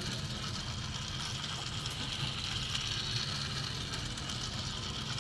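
Battery-powered toy train running around a plastic track: a steady whirring of its small motor with a fine rattle of wheels on the track.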